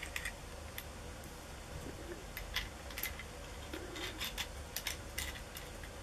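Scattered light clicks and taps of small parts being handled: short pieces of pipe and laminate plates of a homemade coil winder being fitted together, over a faint steady low hum.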